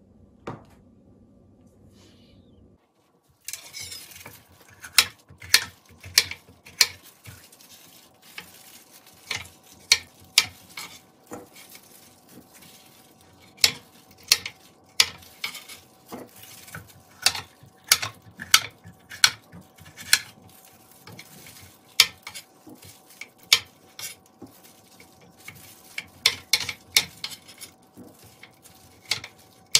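Kitchen knife slicing bell peppers on a cutting board: irregular sharp knocks of the blade striking the board, about one or two a second, beginning a few seconds in. A faint steady hum runs underneath.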